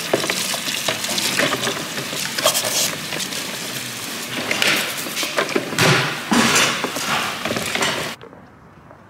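Washing up by hand: tap water running into a plastic washing-up bowl while a dish brush scrubs plates, with clinks and clatter of dishes. The sound cuts off abruptly about eight seconds in.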